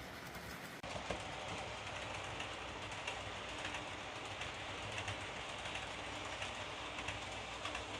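Roco BR186 HO-scale model electric locomotive running along model railway track under DCC control: a steady, faint running noise from the motor and wheels, with light, irregular clicks from the wheels on the rails.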